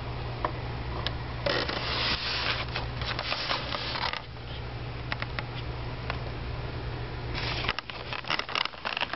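Scraping and rustling from handling, in two stretches of a few seconds each with small clicks among them, over a steady low hum.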